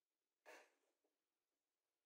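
Near silence, with a single faint, short knock about half a second in: a bent steel clamp bar touching the plywood tailstock block as it is fitted under it.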